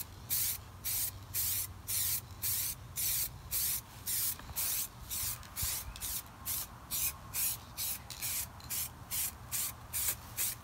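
Aerosol spray-paint can spraying in short, regular bursts, about two a second, each a brief hiss.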